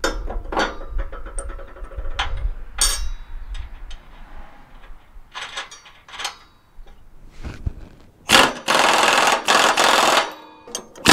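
Scattered tool clicks and knocks on the mower deck, then about eight seconds in a loud impact wrench hammering for about three seconds as it tightens a mower blade bolt, flattening the blade washers.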